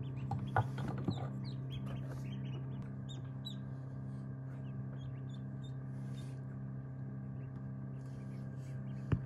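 Newly hatched ducklings peeping, a busy run of short high calls for the first few seconds, then sparser, over the steady hum of the egg incubator. A sharp click near the end.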